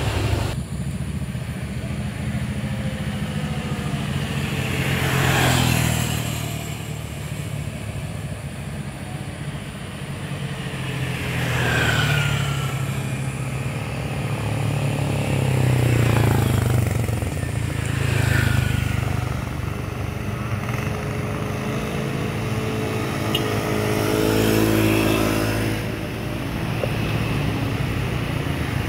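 Steady low drone of heavy truck diesel engines in slow traffic. Motorcycles and cars pass close by about five times, each swelling and fading as it goes past. Near the end one engine's note climbs as it revs.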